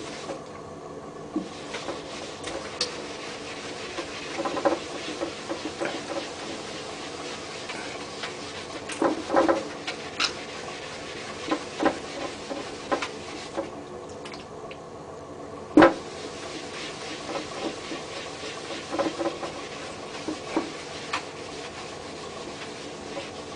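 A damp polishing cloth being rubbed by hand over glass with cerium oxide slurry to polish off hard-water spots, giving irregular short rubbing and scraping strokes over a steady background hum. There is one sharp knock about 16 seconds in.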